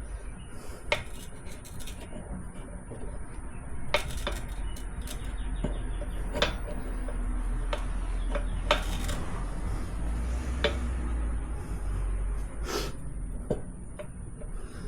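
Steel tire irons clinking and knocking against a motorcycle wheel rim as the rear tire is levered off by hand: scattered sharp metallic clicks, over a low steady hum.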